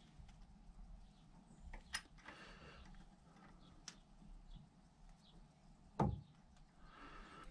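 Quiet workshop with a faint hum: a few light clicks as a metal centre gauge is handled against a lathe threading tool, and one louder knock about six seconds in.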